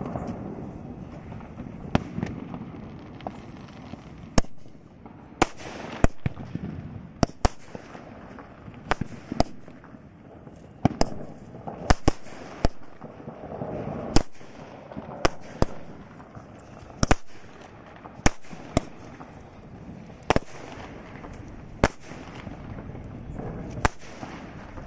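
A 12-shot aerial firework cake firing its shells one after another into the sky: loud sharp bangs at uneven intervals, about one a second.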